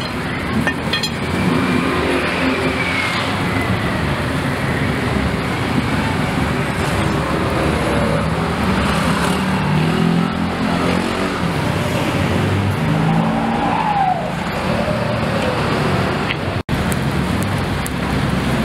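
Street ambience dominated by a steady wash of road traffic, with faint passing engine tones. The sound cuts out for an instant near the end.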